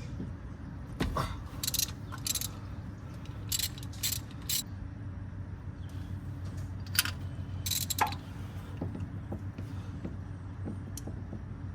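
Metal hand tools clinking and scraping while spark plugs are being changed in a truck's engine bay. About a dozen short, sharp clicks are scattered irregularly through it, over a steady low hum.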